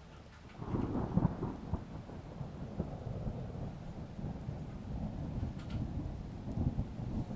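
Thunder rumbling low and continuously with rain, setting in suddenly about half a second in.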